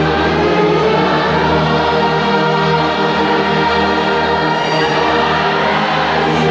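Large congregation singing a hymn with a church orchestra of strings and brass, the chords held long and steady.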